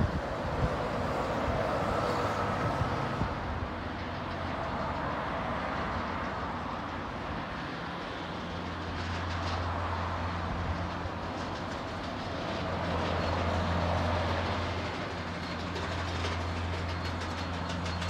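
Road traffic going past with a steady outdoor rush, a city bus driving by at the start. About halfway through, a steady low engine hum sets in.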